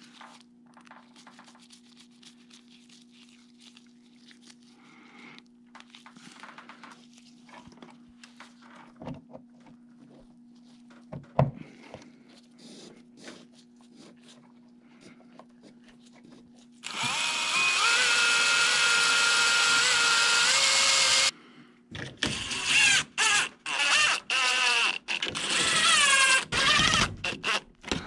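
Cordless drill-driver, starting over halfway in with a steady run of about four seconds and then a string of short trigger bursts as it drives into the metal ceiling-grid rail. Before it starts there are only faint clicks and rustles of hand work on the wiring.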